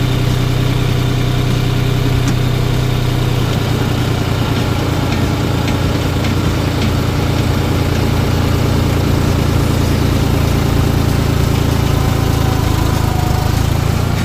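Tractor engine running steadily and loudly, driving a PTO-powered earth auger boring a planting pit into soil.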